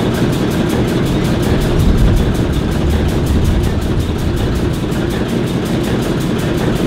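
Two ALCO diesel switchers, an S4 and an S7, idling together with their turbocharged six-cylinder 539 engines: a steady low rumble with a fast, even exhaust beat that swells slightly about two seconds in.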